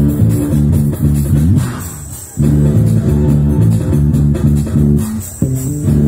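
Electric bass guitar played live with a band, its low notes the loudest part. The playing drops away briefly about two seconds in, then comes back in.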